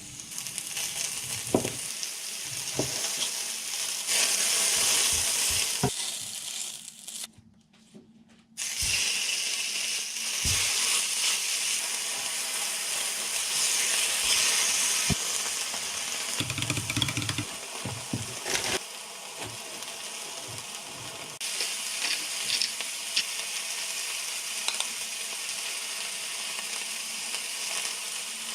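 Food sizzling in a frying pan, with scattered knocks and clinks of kitchen utensils. The sound drops out briefly about seven seconds in.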